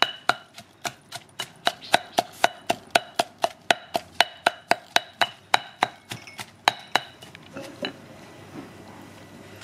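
A stone pestle pounds a coarse green chilli paste in a heavy stone mortar, striking about four sharp knocks a second, each with a short stony ring. The pounding stops about three-quarters of the way through.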